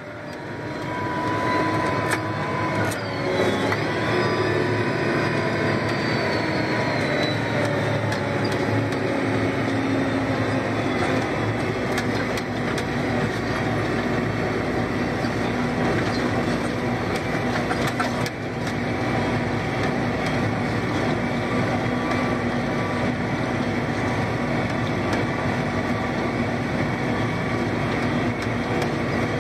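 John Deere 8530 tractor's six-cylinder diesel running steadily, heard from inside the cab, the level climbing over the first second or two. A faint whine fades away over the first ten seconds, and a few light clicks sound here and there.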